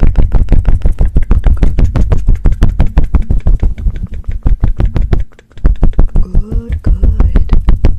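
Fast, even strokes right on the microphone, about eight a second, loud with a heavy low thud in each, broken by a half-second pause a little past five seconds in.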